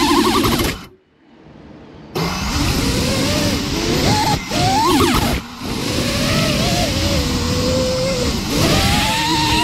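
FPV quadcopter motors heard through its onboard camera, whining with pitch rising and falling as the throttle changes. They drop out for about a second near the start, then come back with brief dips.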